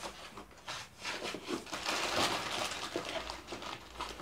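A hand rummaging through a cardboard box of snack packets: rustling and crinkling of plastic wrappers against cardboard, getting louder about two seconds in.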